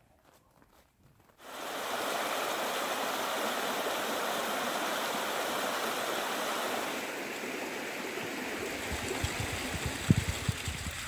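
Faint footsteps in snow. Then, about a second and a half in, a small woodland creek starts up, a steady rush of water flowing over rocks between ice and snow. Low thumps join it near the end.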